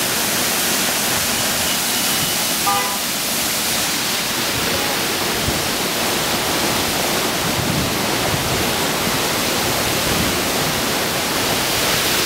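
Flash-flood water pouring over a cliff as a waterfall and rushing along a flooded wadi channel: a steady, loud rushing of water.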